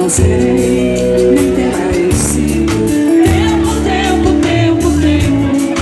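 Live band music with a woman singing over sustained bass and steady percussion, heard loudly from within the audience.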